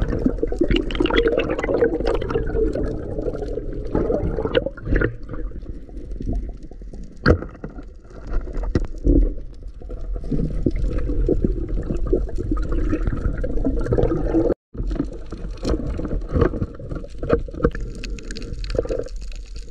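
Water sloshing and gurgling around the camera of a diver swimming in the sea, with scattered small knocks and clicks.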